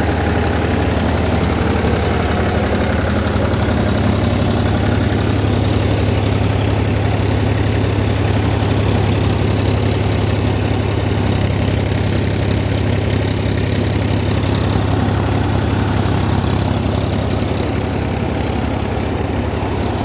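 Mahindra Yuvo 275 DI tractor's three-cylinder diesel engine running smoothly at a steady speed, driving a Surjeet thresher, whose drum and fans add a constant whirring rush as sheaves of straw are fed in. The level stays even throughout.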